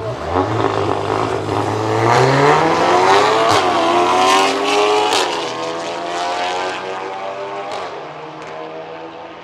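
A Volkswagen Golf R Mk7 and a Mercedes-AMG SUV coupé launching side by side from a standing start, engines revving hard. The pitch climbs, drops at a gear change about three and a half seconds in and again about five seconds in, with a few sharp cracks along the way, then the sound eases off as the cars pull away.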